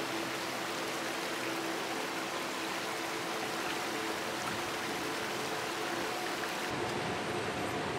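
Shallow rocky stream rushing steadily over stones. About seven seconds in, the sound changes to a deeper, fuller rush.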